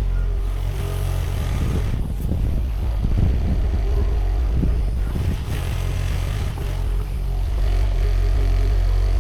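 Sany SY50U mini excavator's diesel engine running steadily under work, its low hum shifting slightly as the hydraulics take load.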